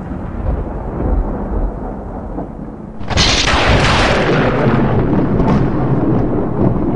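Thunder, an added sound effect. A low rolling rumble runs until a sudden sharp crack about three seconds in, which then rolls on louder.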